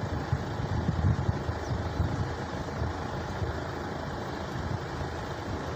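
Steady idling-engine rumble with wind buffeting the microphone, the gusts strongest in the first couple of seconds.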